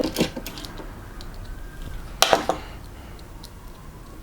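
Light handling noises from a screwdriver working on a motherboard's M.2 screw: a few small clicks and taps, with a brief scraping rustle about two seconds in.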